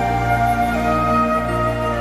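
Soft, slow background music: sustained held notes with a flute-like melody.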